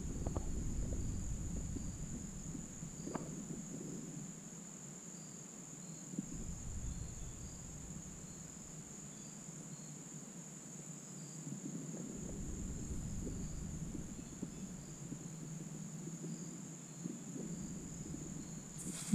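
Crickets trilling in one steady, unbroken high drone, with fainter insect chirps repeating lower down, over a low rumble. A brief loud thump comes at the very end.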